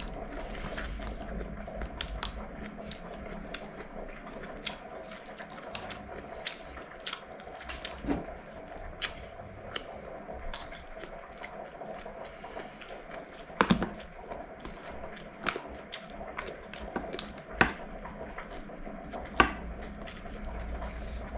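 Someone eating: chewing, with many small clicks and taps of fingers and utensils against a metal pan and food containers. A few louder clacks come in the second half, over a steady low hum.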